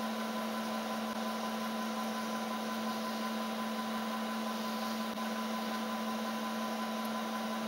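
Milling machine running steadily as a 5 mm carbide endmill slowly cuts into a sheared cam chain tensioner bolt in a Suzuki Quadrunner cylinder: an even hum with a fainter, higher steady whine.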